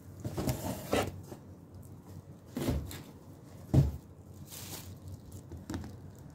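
Bubble wrap rustling and crinkling in a few short spells as a wrapped item is handled, with a dull thump a little past the middle.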